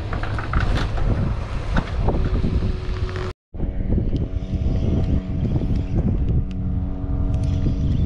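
Wind noise on the microphone, then a sudden cut about three and a half seconds in. After the cut, a boat's engine drones steadily at one unchanging pitch under the wind.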